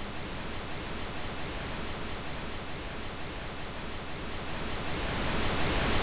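Steady hiss, swelling louder near the end.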